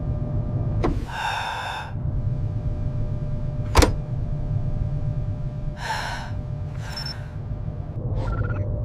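A cartoon astronaut's short gasps and wordless exclamations, several of them spread apart, over a steady low hum. There is a sharp click about four seconds in.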